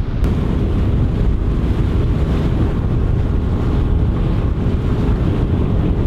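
Wind buffeting the microphone on a moving boat, a dense steady rumble, with a faint steady hum underneath.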